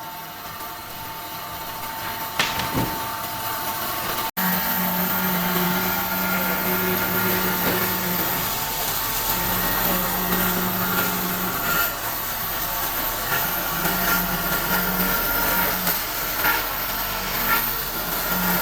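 An electric power tool's motor running steadily while working wood, with a short break in the sound about four seconds in.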